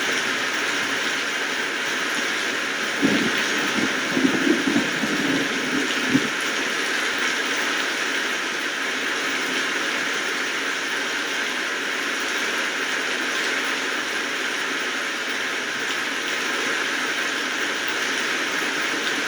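Steady rainfall: an even, dense hiss of rain that does not change, with a few brief low thuds about three to six seconds in.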